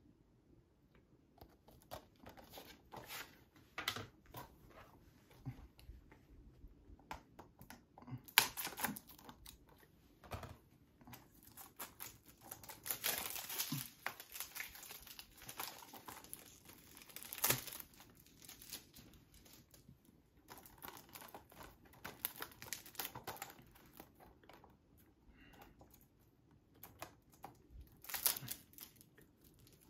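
Plastic shrink wrap being torn and crumpled off a Blu-ray case: irregular crinkling and rustling, with a few louder tearing bursts.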